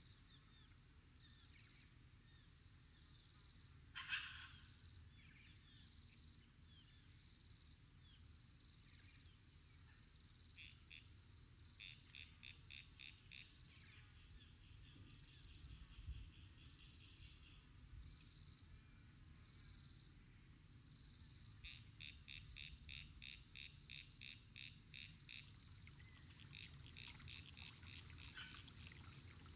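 Faint frog calls at a pond: a short high chirp repeating about once a second, with runs of rapid clicking calls, a few clicks a second, that come and go. A single louder, sharp call sounds about four seconds in.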